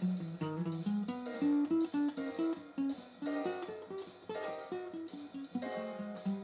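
Background guitar music: a quick run of short picked notes over a repeating low bass pattern.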